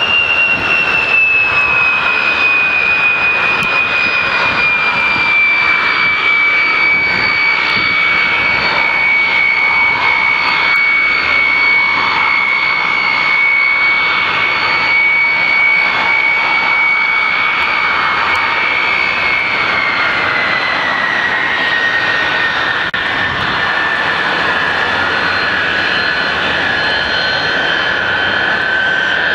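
Soloviev D-30 turbofan engines of a Tupolev Tu-134A-3 running with a loud, high whine over a steady roar. The whine slides down in pitch over the first several seconds, holds, then drops again about twenty seconds in.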